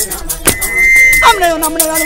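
Live traditional dance music: a whistle blown in repeated long, steady blasts over a quick beat of sharp percussion strokes, with a voice singing a held note a little past the middle.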